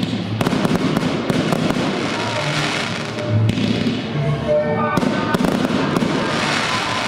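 Aerial firework shells launching and bursting, with repeated sharp bangs and crackle, over music playing.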